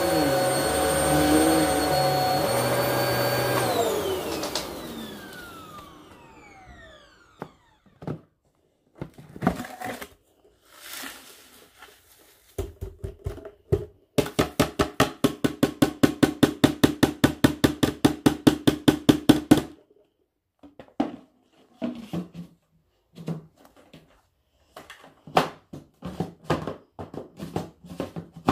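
Upright vacuum cleaner running on carpet, then switched off, its motor winding down with a falling whine over about two seconds. After that comes crisp crackling and crunching of a dry pile of vacuumed debris and dried petal flakes, including a fast, even run of about seven crackles a second midway.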